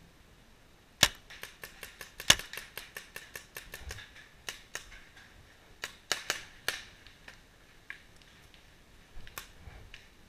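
Paintball markers firing: two loud close shots about a second apart, among a rapid string of quieter pops, then scattered single shots.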